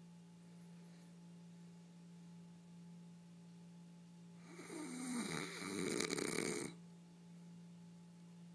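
A person snoring: one long, loud snore about four and a half seconds in, lasting about two seconds, over a steady low hum.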